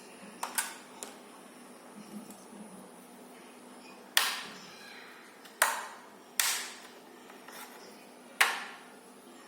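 Sharp clicks and knocks from handling the parts of a robot vacuum: a few light clicks near the start, then four louder knocks, each ringing briefly.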